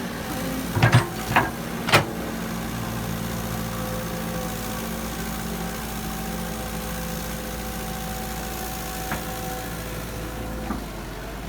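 A heavy construction machine's engine running steadily, with three sharp knocks in the first two seconds, the last the loudest.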